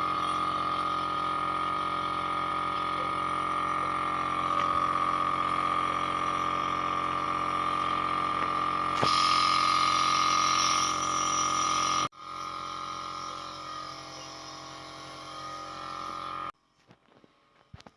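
Compressor nebulizer running for an inhalation: a steady motor hum with a hiss of air. It grows louder and hissier about nine seconds in, drops abruptly a few seconds later, and cuts off suddenly near the end.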